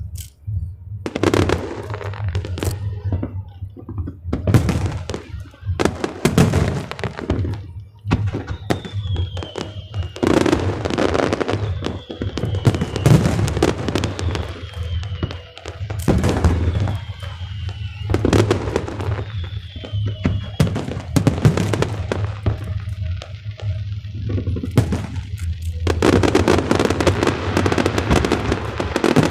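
Fireworks display, shells bursting one after another, with five short falling whistles in the middle and a dense run of crackling bursts near the end. Music plays underneath.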